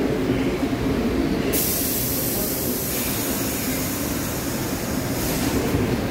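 A New York City Subway 6 train of stainless-steel R62A cars rolling slowly into the station and braking to a stop: a steady low rumble of wheels and motors. About a second and a half in, a high hiss of air starts abruptly and runs for about four seconds.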